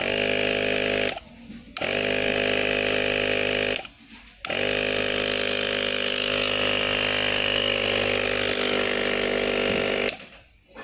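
12-volt mini air compressor running and being switched on and off at its rocker switch. It runs about a second, stops, runs about two seconds, stops again, then runs about five and a half seconds before cutting off near the end. It starts straight away each time, working normally.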